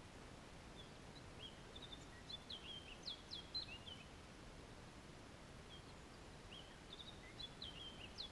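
A songbird singing two phrases of quick, high chirping notes, the first about a second in and the second near the end, over a faint steady hiss.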